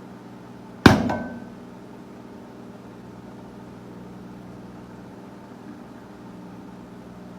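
Microwave oven running with a steady hum. About a second in, a single sharp bang cuts through, followed by a short ringing decay.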